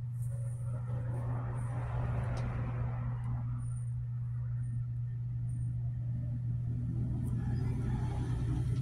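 Steady low hum, with a rushing noise that swells and fades about one to three seconds in and builds again near the end.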